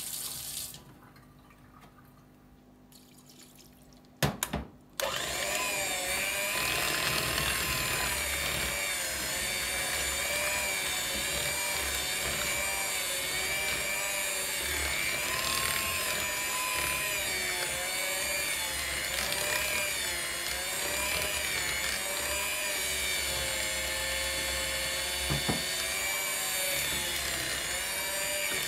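Electric hand mixer: a few clicks about four seconds in, then it runs steadily, its pitch wavering slightly as the beaters work a flour, oil and water batter in a plastic bowl.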